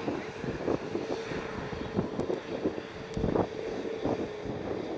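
Airbus A320neo airliner's jet engines during the landing rollout, a steady hum that fades near the end, with wind gusting and buffeting on the microphone.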